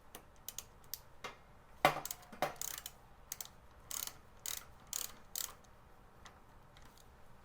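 Hand ratchet clicking in short strokes: a string of sharp clicks, settling into about two a second in the middle before stopping.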